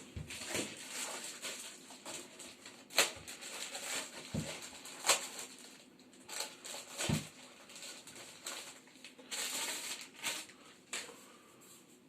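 Handling sounds of a vacuum cleaner and its packaging being unpacked: irregular rustling with sharp clicks and knocks, the loudest about three seconds in and again about five seconds in.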